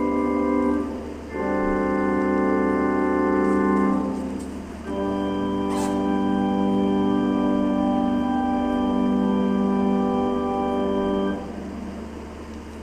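Organ playing the closing chords of a piece: three long held chords with short breaks between them, the last cutting off about a second and a half before the end. A light click sounds about halfway through.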